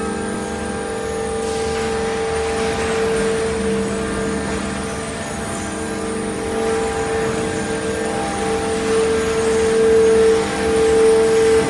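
Machinery running with a steady hum and a constant mid-pitched tone over a bed of noise, getting somewhat louder near the end.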